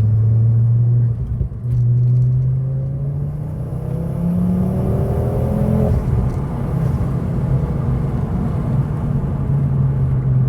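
Ford Focus ST225's turbocharged five-cylinder engine under hard acceleration, heard from inside the car. Its note breaks briefly about a second in, then rises in pitch for about four seconds as the revs climb, and drops suddenly as the throttle is lifted, settling to a steady run. The engine has a newly fitted silicone turbo-to-crossover pipe, which makes it a lot louder.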